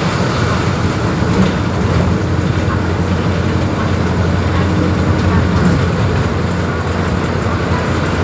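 Mercedes-Benz OF-1721 BlueTec 5 bus diesel engine running steadily, with a low hum that holds an even pitch.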